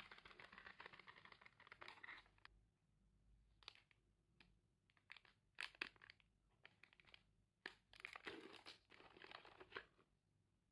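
Plastic wrapper of a Fitbar cereal bar crinkling in the hands in several bouts, with scattered crackles between them. Near the end there is a longer stretch of crinkling as the wrapper is torn open.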